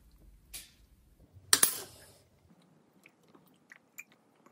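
A single sharp metallic clink, as of a metal teaspoon, about one and a half seconds in, among faint mouth sounds and small clicks as a spoonful of dry powder is taken and eaten.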